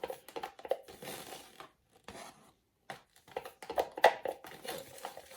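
Irregular clicks, knocks and crinkling from handling paint cups and pouring supplies, with one sharper click about four seconds in.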